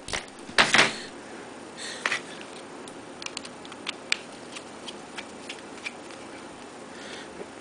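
Torx screwdriver backing a small screw out of a metal clutch body: a short clatter of tools about half a second in, then sparse faint metallic ticks and clicks.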